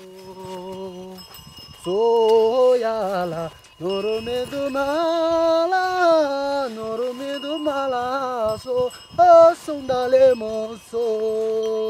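A voice singing a slow melody in long held notes that bend and waver, phrase after phrase with short breaths between.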